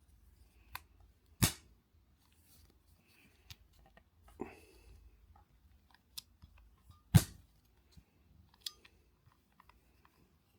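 A small steel ballpoint-pen spring being snipped to length, with two sharp, loud snaps about a second and a half in and about seven seconds in, and lighter clicks and handling noise between.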